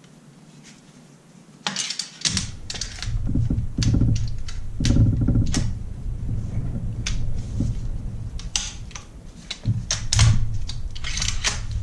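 Irregular metallic clicks and knocks as the upper and lower receivers of a Panzer AR-12 Pro 12-gauge AR-style shotgun are fitted together at the rear and the rear takedown pin is pushed in, with dull handling thuds. They start about two seconds in.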